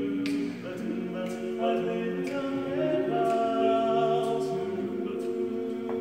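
Male barbershop quartet singing a cappella, four voices in close harmony, holding chords and moving from one to the next.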